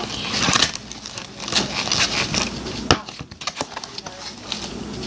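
Fork stirring and scraping activated glue slime in a container, making quick irregular clicks and scrapes, with one sharper click about three seconds in.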